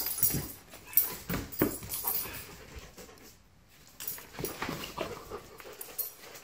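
A red Doberman and a husky play-wrestling on a tile floor: dog vocal noises and scuffling come in irregular bursts, with a lull of about a second a little past the middle.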